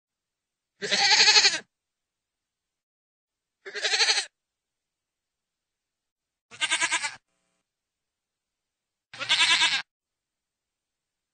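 Goat bleating four times, each call well under a second long, spaced two to three seconds apart with silence between. The last two calls have a rapid quavering tremble.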